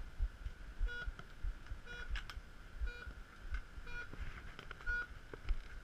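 Race start-gate countdown clock beeping out the last seconds before the start: five short, identical beeps, one a second.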